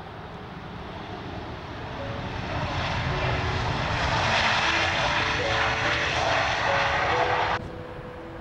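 Jet engines of a Boeing 737 on its landing rollout, a broad engine noise growing louder over a few seconds, typical of reverse thrust after touchdown. It cuts off suddenly near the end, over faint background music.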